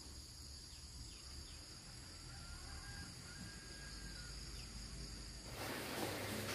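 Insects chirring in a steady high drone, with a few faint bird chirps. Near the end the drone cuts off and a louder, even hiss of room noise takes over.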